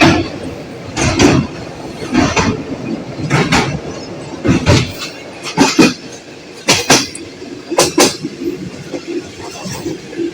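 Passenger train's wheels clattering over rail joints about once a second, sometimes in quick pairs, over a steady running rumble; the train is moving at slow speed.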